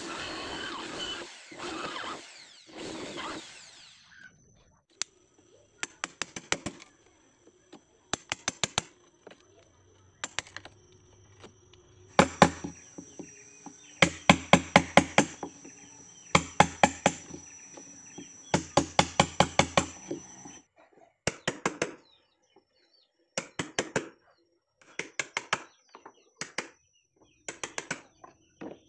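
Hammer driving a wood chisel into a small wooden boat's hull post to cut out a hole: repeated runs of sharp wooden knocks, several quick strikes each, with short pauses between. A few seconds of rough rushing noise come before the first strikes.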